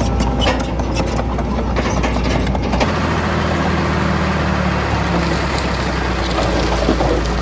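Heavy diesel engine of earthmoving machinery running steadily. About three seconds in, a denser rumbling noise joins it.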